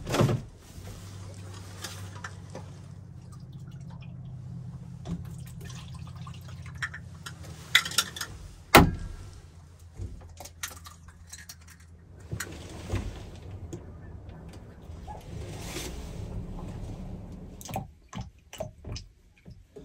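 Hand food preparation at a small table: knocks and clicks of a plastic mixing bowl and ingredient containers as eggs and other ingredients go in and are stirred with a fork, with one sharp knock about nine seconds in. A steady low hum runs underneath.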